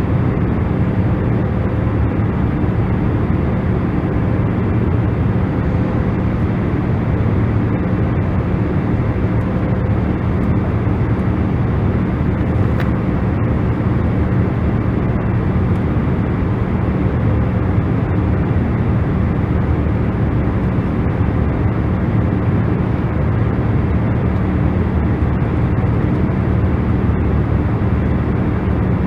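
Steady noise played as a sleep sound: a deep, even hiss with most of its weight in the low and middle range and little treble, with a faint steady hum under it. It does not change.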